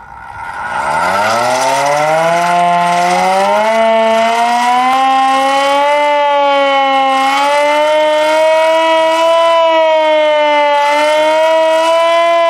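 Secomak 447 electric siren on test, winding up from a start with its pitch rising over the first few seconds, then sounding a steady tone that wavers slightly in pitch.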